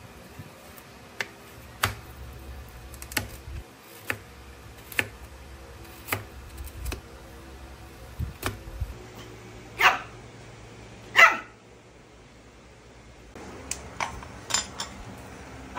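Shih Tzu barking twice, a little over a second apart, over a run of light sharp clicks or taps.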